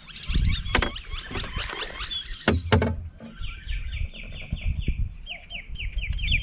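A bird calling in fast runs of short, down-slurred chirps, about six to eight a second, clearest in the second half, over a low rumble with a couple of sharp knocks in the first half.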